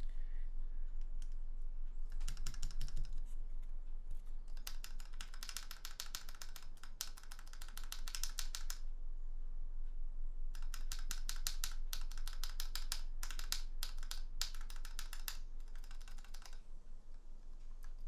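Mechanical keyboard switches on a KBD67 MKII pressed in rapid runs of clacks, a sound test of a newly fitted switch, in several bursts with short pauses between.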